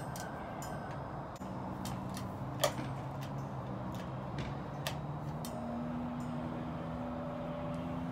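Scattered light clicks and taps from handling the patio heater's pole and fittings during assembly, the sharpest about two and a half seconds in, over a steady background noise with a faint low hum.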